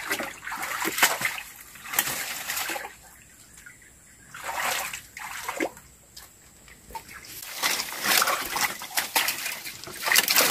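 Shallow muddy water sloshing and splashing in irregular bursts as hands grope through it for fish, quieter for a couple of seconds in the middle and busier near the end.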